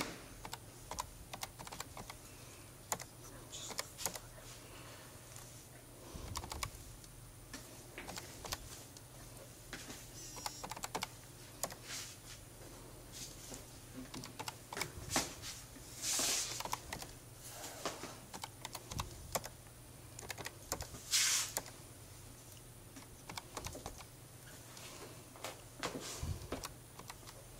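Typing on a computer keyboard in irregular runs of clicks over a faint steady low hum. There are two louder short hissing sounds, one about halfway through and one about five seconds later.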